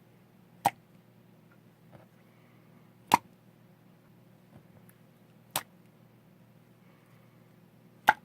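Four sharp clicks, evenly spaced about two and a half seconds apart, over a faint steady low hum.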